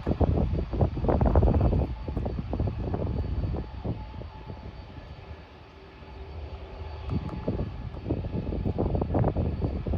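Jet engine noise from a departing Boeing 767 freighter at climb power, broken up by heavy wind gusts buffeting the microphone. It eases off about halfway through and builds again near the end.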